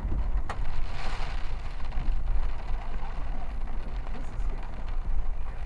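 Road and engine noise heard from inside a moving vehicle's cabin: a steady deep rumble under an even hiss.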